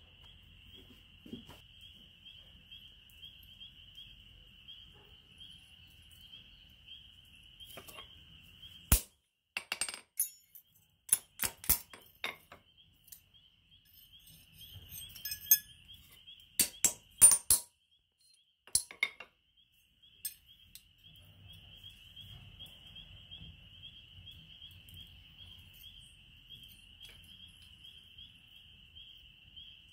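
Sharp metallic clinks and taps in a cluster through the middle, of steel tools and the forged hook knocking against the anvil, the loudest two single hits. Behind them, insects trill steadily at a high pitch.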